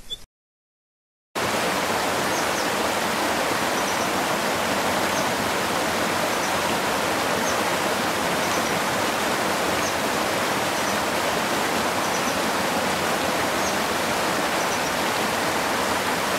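Steady rushing water of a waterfall or stream, starting abruptly about a second in after a brief silence, with faint bird chirps over it.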